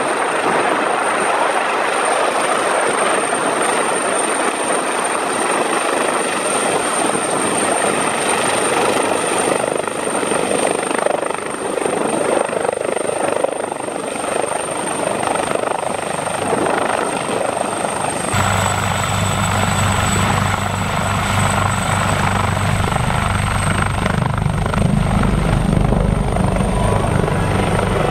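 Helicopter running close by: a steady high turbine whine over the rush of rotor wash. A little past halfway the sound changes abruptly, and a deep, throbbing beat of the rotor blades comes in under the whine.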